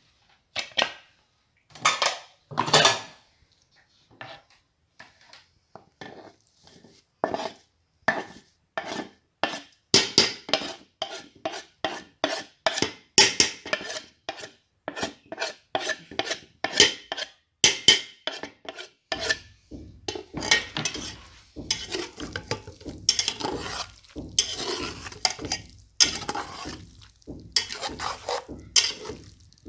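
A metal spatula scraping and stirring vegetables in a pressure cooker pot, a long run of irregular scrapes and clinks against the metal. A low steady hum joins in about two-thirds of the way through.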